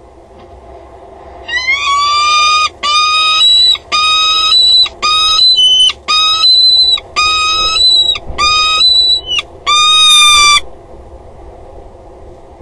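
Peregrine falcon calling from its nest box: a run of about eight loud, drawn-out calls, each about a second long, starting a second or two in and stopping near the end.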